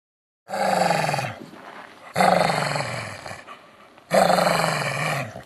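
Three loud animal-like roars about two seconds apart, each falling in pitch and fading away.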